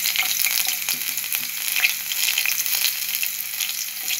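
Batter-coated chickpeas deep-frying in hot oil: a steady, crackling sizzle as more pieces are dropped in one by one.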